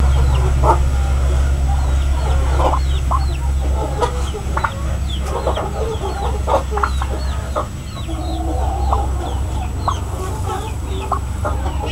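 Poultry clucking in short calls, with a string of short high chirps, about two a second, running through it over a steady low hum.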